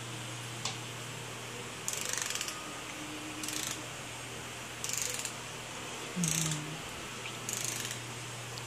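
A ratchet wrench clicking in short runs, about five strokes roughly a second and a half apart, as it turns bolts down in the engine block, over a steady low hum.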